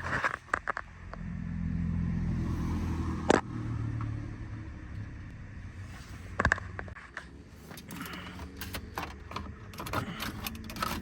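Sharp clicks and knocks of plastic dash trim and its retaining clips being pried loose and handled, with a louder snap about 3 seconds in and another about 6.5 seconds in. A low, steady hum runs under the first half.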